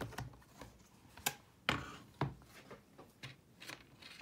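A handful of separate light knocks and clicks as a Stamparatus stamp-positioning tool is handled, lifted and moved off the craft mat. The loudest knock comes just under two seconds in.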